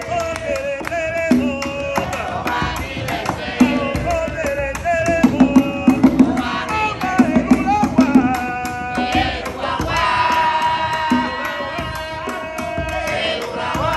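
Hand drums playing a fast, steady rhythm under group singing of ceremonial chants; the singing grows fuller and stronger in the second half.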